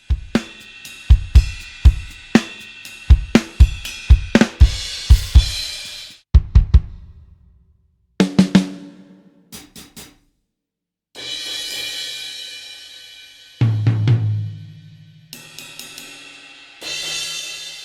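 Sampled 1960s Ludwig Keystone drum kit from a software drum library. For about six seconds it plays a dense run of kick, snare and cymbal hits. After that come separate hits with gaps: a pitched drum, ringing cymbals, a deep low drum hit and more cymbal crashes.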